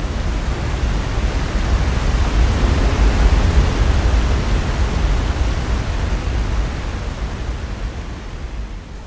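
A steady rushing noise with a deep rumble underneath, swelling to its loudest about three seconds in and then slowly fading away.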